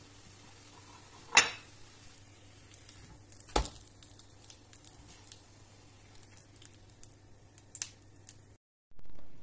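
Kitchen utensils clinking against cookware: three sharp clinks, the loudest about a second in, one in the middle and one near the end, with softer ticks between, over a faint steady low hum. The sound cuts off abruptly near the end.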